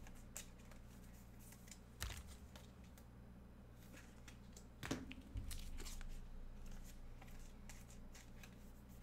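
Faint rustling and a few light taps of trading cards and foil pack wrappers being handled, over a steady low hum.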